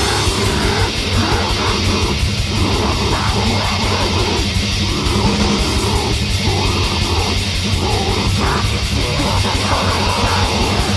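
Lo-fi death/grind demo recording: heavily distorted guitars and bass over fast, continuous drumming, with low growled vocals in short rough phrases.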